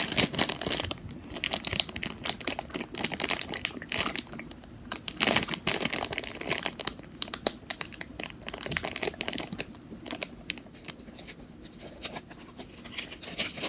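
Plastic toy packaging crinkling and tearing as it is unwrapped by hand, in quick, irregular crackles that come in louder flurries.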